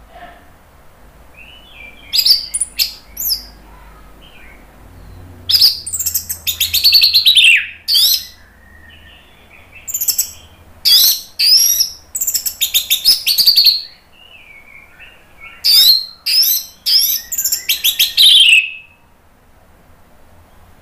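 Orange-headed thrush singing loud, full song in four bursts of rapid, high, sliding notes separated by short pauses.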